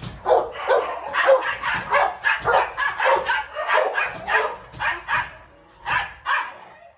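A dog barking in a fast run of short barks, about two to three a second, that stops near the end.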